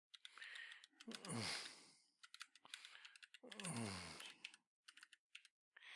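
Faint keystrokes on a computer keyboard: a search phrase being typed in scattered, uneven clicks. A voice murmurs softly twice, each time falling in pitch.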